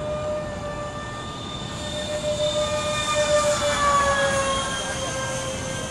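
GWS foam RC F-15 model jet flying past, its electric motor giving a steady high whine. It grows louder about halfway through, then drops slightly in pitch as the plane passes.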